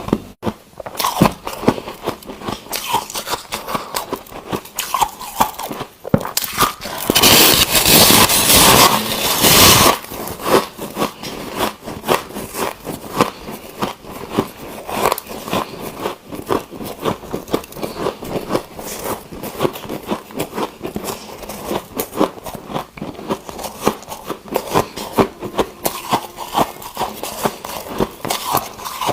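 Ice being bitten and chewed close to the microphone: a steady run of irregular crunches and cracks, with a louder, denser stretch of crunching between about seven and ten seconds in.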